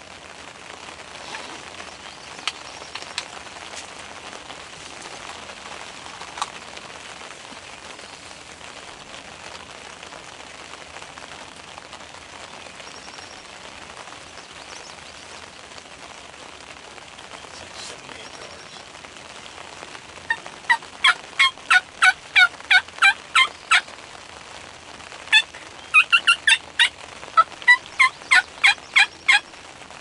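Wild turkey calling: two runs of about a dozen short, evenly spaced notes, about three a second, the second run starting about a second after the first ends. Under them is a faint steady hiss of rain with a few drip ticks.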